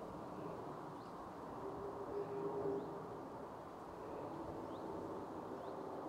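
Rural outdoor ambience: a steady low background rumble with a few faint, brief bird chirps. A droning hum swells about two seconds in and fades, then returns more faintly later.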